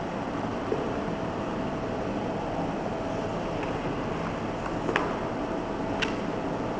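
Steady mechanical hum and hiss of background noise, like an air conditioner or fan, with a faint steady tone and two sharp clicks near the end.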